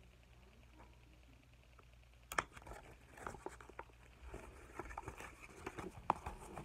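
Quiet room, then a sharp click about two seconds in, followed by a run of irregular light taps, clicks and rustling: handling and movement close to the microphone.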